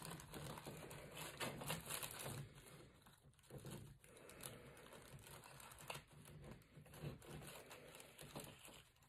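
Faint crinkling and rustling of a clear plastic packaging bag, with small irregular crackles as hands fiddle with a plastic action figure and its accessory.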